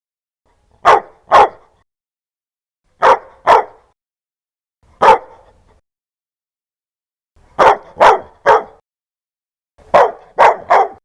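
A dog barking in short runs of one to three barks with silent gaps between, eleven barks in all.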